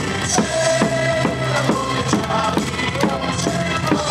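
Upbeat electronic pop cheer music played over stadium loudspeakers, with a steady drum beat of a little over two beats a second under a held melody.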